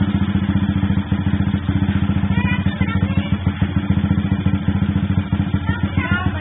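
Honda Sonic 125 motorcycle engine idling steadily and loudly, with an even, fast pulse from the exhaust.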